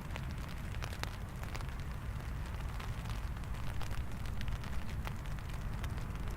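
Rain falling, with scattered sharp drop hits and a steady low rumble underneath.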